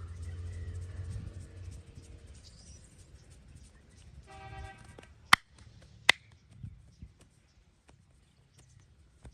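Two sharp cracks less than a second apart, joint cracks during a massage, after low rubbing and handling noise.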